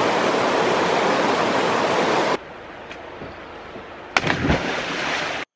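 Creek water rushing over rocks in shallow rapids, a loud steady rush that cuts off about two seconds in. Then quieter water, and about four seconds in a man jumps feet-first into the creek with a sharp splash and a second or so of splashing water.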